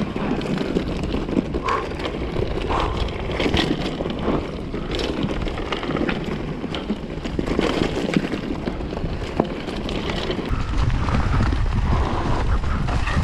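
Wind buffeting an action camera's microphone on a ride, with scattered rattles and clicks over it; the low wind rumble gets heavier about ten seconds in.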